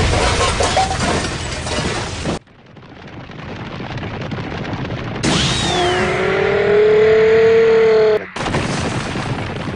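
Cartoon impact sound effect: a heavy crash with rumbling noise that stops suddenly about two seconds in. A softer noise then swells, followed by a loud held pitched cry of about three seconds that cuts off abruptly.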